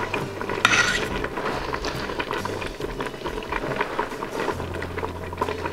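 Vegetable stew simmering in a stainless steel stockpot, a steady bubbling with small pops, with light clinks and a scrape from a fork against the pot about a second in.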